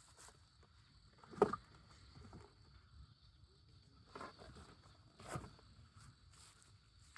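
A few scattered knocks and crackles of wood at a campfire, the loudest about one and a half seconds in and two more later on.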